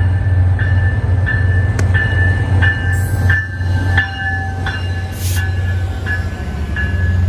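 A railway warning bell dinging steadily, about one and a half strikes a second, over the steady low hum of a train's engine.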